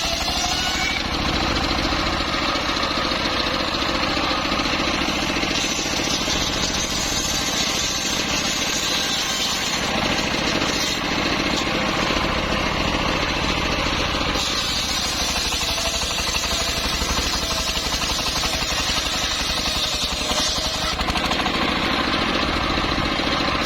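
Engine-driven wood saw of a mobile sawmill running steadily, with a fast, even engine beat.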